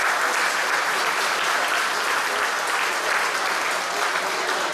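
Spectators applauding in a sports hall, a steady wash of clapping.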